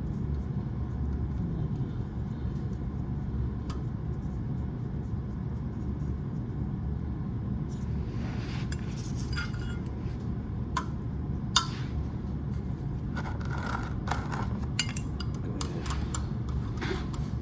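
Metal hand tools clicking and scraping as the oil drain plug and its washer are threaded back in and snugged up with a wrench. Scattered sharp clinks come mostly in the second half, over a steady low rumble.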